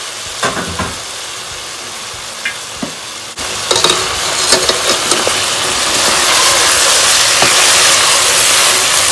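Potatoes and cauliflower sizzling in oil in a wok as they are fried dry, with a spatula stirring and knocking against the pan. The sizzle jumps louder about a third of the way in, and the stirring gets busier from there.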